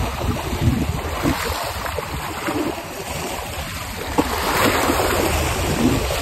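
Small waves washing against shoreline rocks, with wind buffeting the microphone. A single sharp click about four seconds in.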